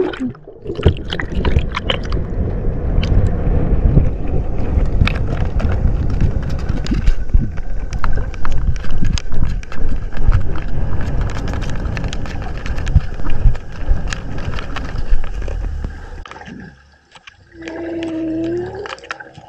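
Underwater noise picked up by a camera in the sea: a rushing rumble full of clicks and knocks, which fades out about three quarters through. Near the end a humpback whale gives one moaning call, about a second and a half long and rising slightly in pitch.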